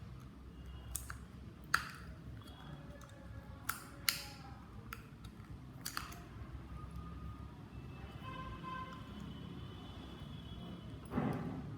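Small screwdriver prying at a headphone's plastic ear-cup cap: sharp plastic clicks, about five in the first six seconds, then a longer scrape near the end.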